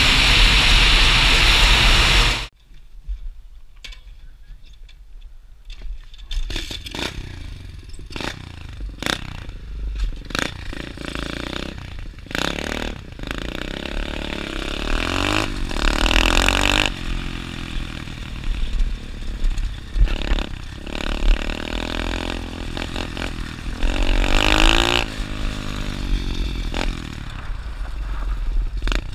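Dirt bike engine running, first a loud steady roar that cuts off suddenly after about two seconds, then idling and revving with the pitch rising and falling several times, mixed with scattered knocks and clatter.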